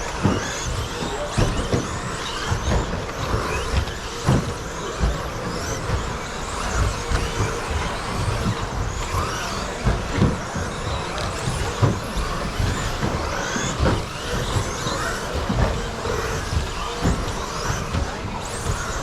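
Several 1/10-scale electric RC stadium trucks with 13.5-turn brushless motors racing on a carpet track: motor whines rising and falling in pitch as they accelerate and brake, with frequent thuds and knocks throughout.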